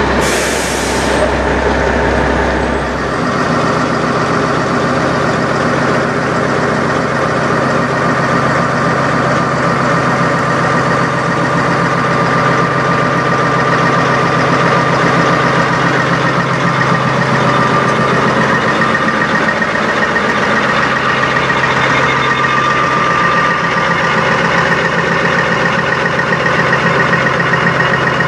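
Peterbilt semi-truck diesel engines idling steadily, with a short burst of air hissing at the start. The low engine note changes abruptly about three seconds in, and a different steady idle runs on.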